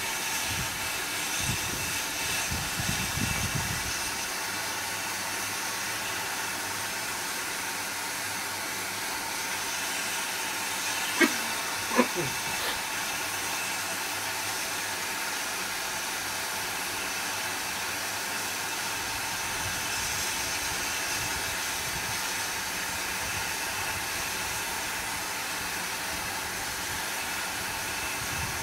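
Steady hissing of steam and fire in the cab of steam locomotive No. 40, with two brief clinks a little under halfway through.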